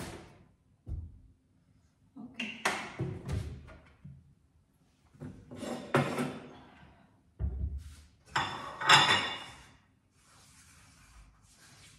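Kitchen handling noises: a series of separate knocks, thumps and clatters as a bottle is put down, a cabinet is opened and dishes are taken out, with the loudest clatter about nine seconds in.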